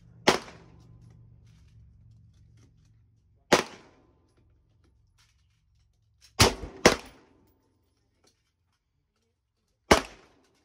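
AR-15 rifle firing five single shots at an uneven pace: one just after the start, one about three and a half seconds in, a quick pair about half a second apart midway, and one near the end.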